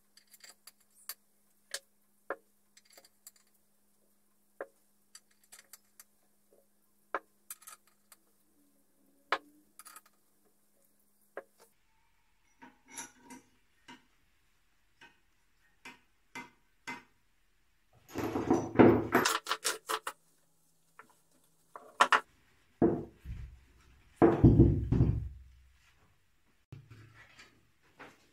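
Small metal engine parts and hand tools clicking as they are picked up and set down on a workbench. About two-thirds through come two louder bouts of metal clattering with heavier thuds.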